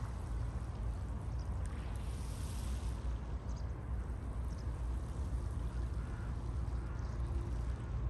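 Sea waves washing on the shore over a steady low rumble of surf, with one wash swelling up about two seconds in.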